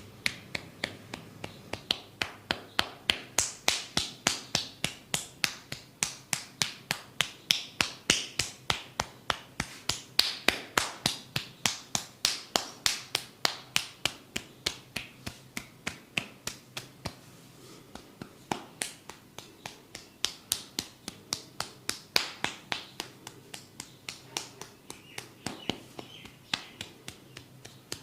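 Percussive massage tapping, a steady run of sharp taps about three a second. The taps soften for a few seconds in the middle and then pick up again.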